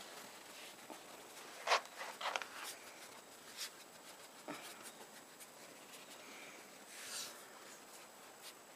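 Faint, scattered short scratchy rustles and crunches, the loudest a pair of scrapes about two seconds in.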